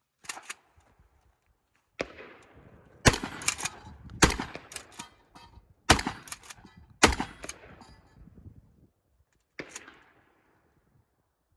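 Pistol shots fired during a shooting stage: about eight sharp reports at uneven spacing, two quickly at the start, then singles a second or so apart, each trailing off in an echo.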